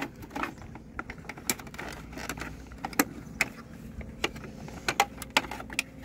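Hard plastic parts of a Bruder toy combine harvester clicking and knocking as hands pull and work at its stuck rear axle assembly: a run of sharp, irregular clicks.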